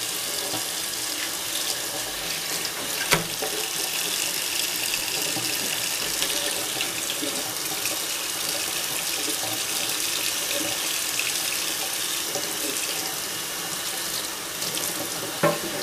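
Kitchen faucet running steadily into a stainless steel sink as a rack of pork ribs is rinsed and rubbed under the stream, with one sharp knock about three seconds in.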